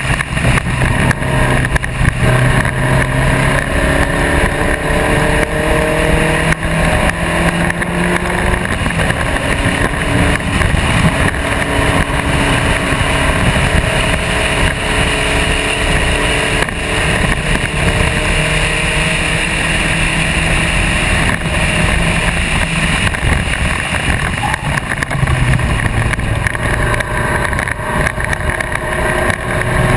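Spec Racer Ford race car's engine running hard at track speed. Its pitch climbs steadily several times as the car accelerates down the straights.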